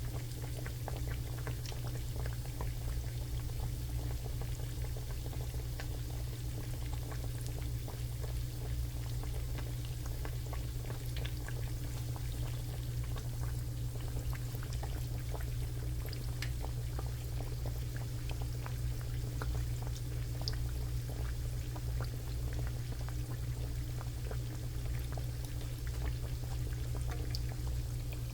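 Faint, scattered crackling of cooking oil frying in a pan, over a steady low hum.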